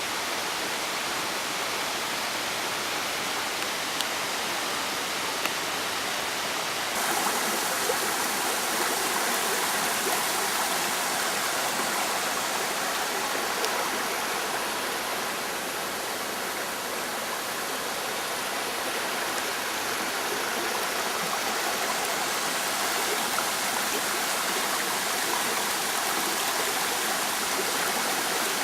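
Steady rushing water, an even dense hiss with no pitch; it gets louder and brighter about seven seconds in.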